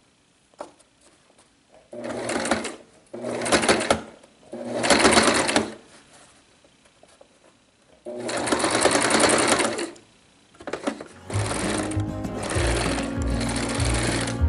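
Domestic sewing machine stitching denim along a zipper edge in four short runs, stopping and starting as the fabric is guided. From about eleven seconds in, background music comes in with a steady low beat.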